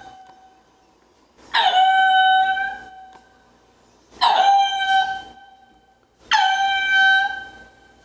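Ring-tailed lemur calling: three long, clear cries about two seconds apart. Each starts abruptly with a short drop in pitch, then holds level before fading.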